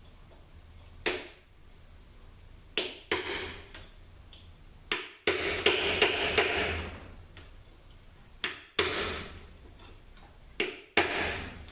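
Hammer blows on metal, knocking a seal out of a THM-125C transmission. About a dozen sharp, ringing strikes, mostly in pairs, with a quicker run of blows about five to seven seconds in.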